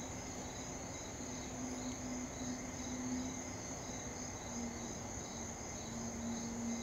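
Insects chorusing, crickets among them: a steady high-pitched trill with a pulsed chirping under it, a few chirps a second. A low hum comes and goes beneath them.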